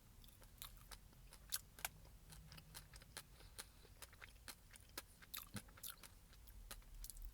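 Faint, irregular small clicks and crackles close to the microphone, several a second, over a low hum.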